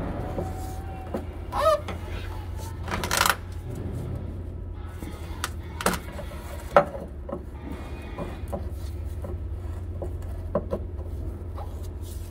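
A wrench and hands working at a DEF pump filter cap being tightened back on: scattered clinks and knocks of metal on plastic, a short squeak near the start, the sharpest knock about seven seconds in, over a steady low hum.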